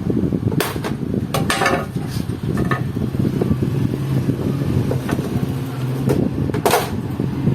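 Clicks and short clattering rattles of the plastic cover and parts of an opened LCD monitor being handled, a few separate ones, over a steady low rumble.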